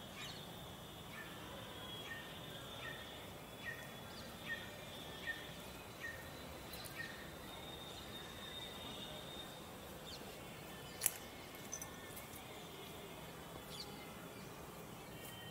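Outdoor ambience with a bird calling over and over: short notes that slide downward, a little more than one a second, for about the first seven seconds. A thin, steady high tone runs underneath, and there is one sharp click about eleven seconds in.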